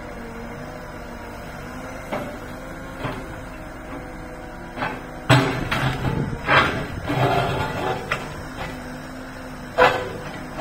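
Road-rail wheeled excavator's diesel engine running steadily while its bucket clanks and knocks against broken concrete and ballast as a level crossing is dug out. A few single knocks come early, a rapid cluster of clanks follows about halfway through, and one loud knock comes near the end.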